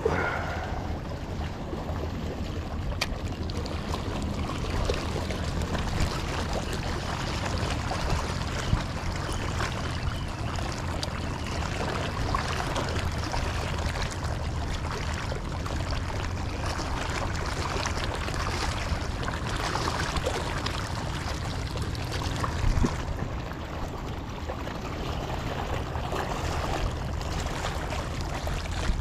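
Small sea waves lapping and washing over shoreline rocks, with wind rumbling on the microphone and a few small clicks.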